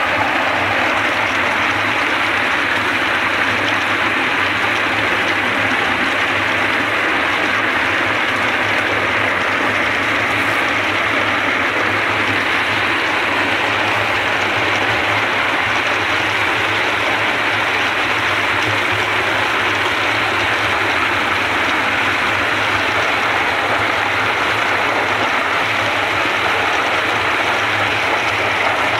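Walnut-hulling machine running: a drum load of walnuts churning and rattling against its grater-sheet walls and blades under a water spray, a steady dense wash of noise over a low, even hum from the electric motor and gear reducer.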